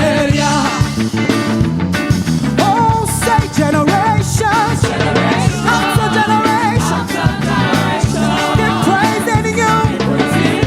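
Live gospel praise-and-worship band music: drums, bass and keyboard play a steady beat, with a wavering sung or played melody line on top.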